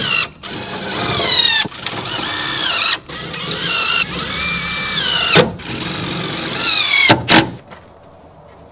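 Power drill driving screws into a wooden shutter's hinge: about six short runs of the motor's whine, a second or two each with brief pauses, the pitch dropping as each screw pulls tight. It stops about seven and a half seconds in.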